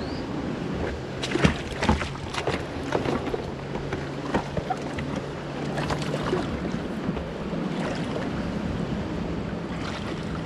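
Kayak on the river: steady rushing water and wind noise, with scattered knocks and splashes from paddling, mostly in the first six seconds.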